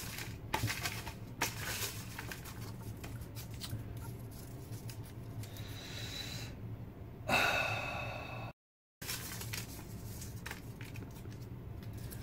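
Folded paper slips rustling and crackling as a hand rummages in a plastic bucket, then a single slip being unfolded. About seven seconds in there is a louder, brief sound with a thin whistling tone. The sound then cuts out completely for about half a second.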